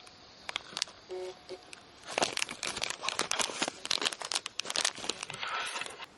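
Thin clear plastic bag crinkling and crackling as it is handled and pulled open around a small toy figure, in quick irregular crackles.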